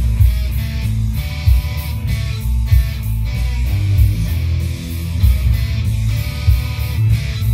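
Telecaster-style electric guitar played loud through an amplifier, a driving hard-rock rhythm riff with sharp accented chords.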